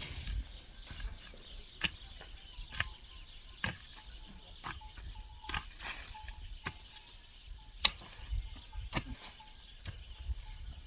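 Repeated sharp blows of a hand tool striking, roughly one a second and fairly even, over faint outdoor background.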